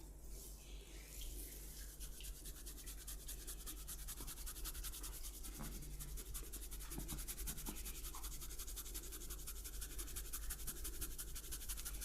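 Hands rubbing rapidly over a person's hair and scalp in a head massage: a fast, even, scratchy rhythm of strokes, with a steady low hum underneath.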